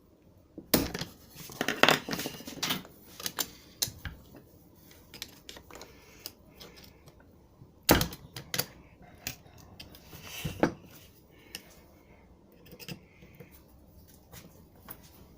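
A screwdriver scraping and clicking against a steering rack's end plug and retaining ring as the ring is worked loose and pried out. The clicks come irregularly, with a few sharper metal knocks.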